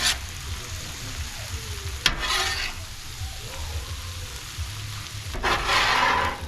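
Rice and vegetables sizzling on a Blackstone flat-top griddle while a metal spatula scrapes and folds them: a short stroke at the start, another about two seconds in, and a longer one near the end.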